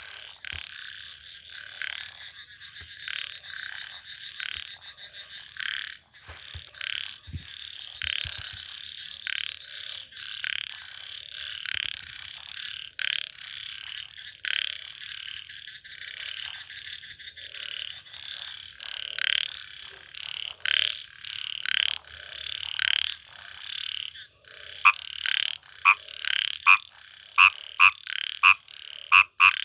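A chorus of frogs croaking, many short calls overlapping. Near the end, one louder frog calls clearly, about twice a second.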